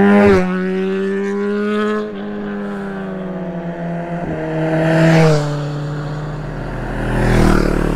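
Motorcycle engine running under way. Its note holds steady and then drops suddenly several times, as at gear changes, with a rush of wind noise about five seconds in.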